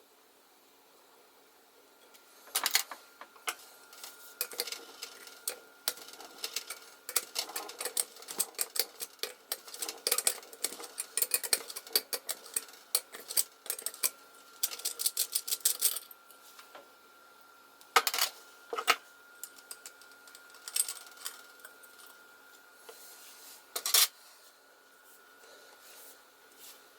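Metal clinks and clicks of a Coleman 200A gasoline lantern's brass and steel parts and tools as its frame and generator are taken off: a busy stretch of small knocks with a quick rattle of clicks about halfway through, then a few separate clinks.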